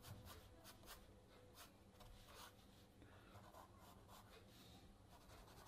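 Faint scratching of a graphite pencil on paper, a run of short strokes drawn one after another.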